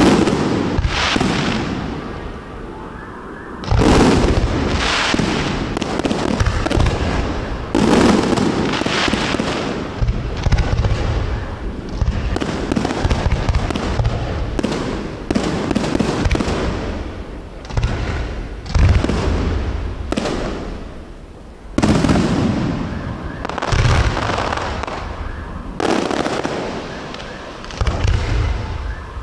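Aerial firework shells bursting in a show: a loud boom every one to three seconds, each trailing off into crackling.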